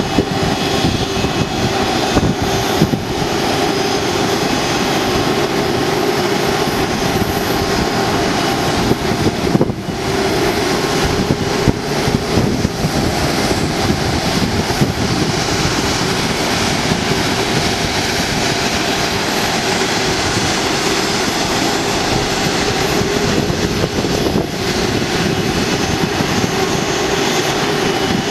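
Airbus A330-200's twin turbofan engines running at low taxi power as the jet rolls past on the ground: a steady, loud jet noise with a constant low hum underneath.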